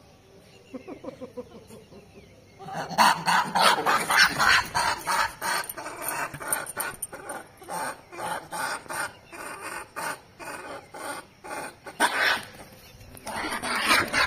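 Rhesus macaques screeching in a fight: quiet at first, then from about three seconds in a fast, loud run of shrieks that carries on, with a strong burst near the end.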